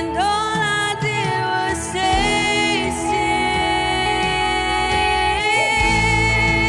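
Live worship band music: a woman sings lead over a band with electric guitar, bass and drums. She ends on one long held note.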